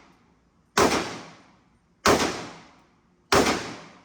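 Three rifle shots from a .300 Blackout rifle, fired about 1.3 seconds apart, each followed by a fading echo.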